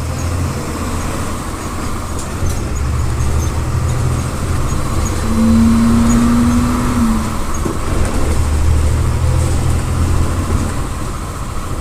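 MWM 6.12 TCE six-cylinder turbodiesel of a VolksBus 17-230 EOD city bus running under way, heard inside the bus, growing louder toward the middle and easing off again. A steady low hum sounds for about two seconds in the middle.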